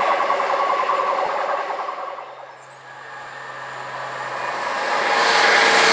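Virgin Trains high-speed passenger train approaching on the main line: its rail and running noise grows steadily louder from about halfway through and is loud by the end. Over the first two seconds an earlier toned sound dies away.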